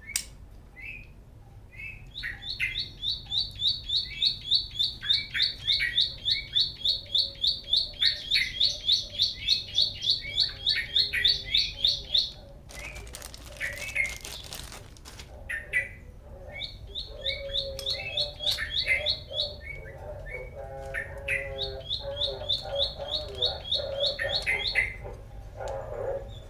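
A bird chirping in fast runs of high, even-pitched chirps, about four or five a second, with pauses between the runs. A short burst of hiss comes near the middle, and lower repeated calls join in the second half.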